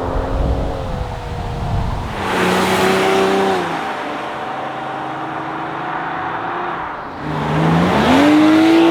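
Hyundai i30 N's turbocharged 2.0-litre four-cylinder engine under acceleration: the engine note swells about two seconds in, eases off, then climbs steeply in pitch and is loudest near the end.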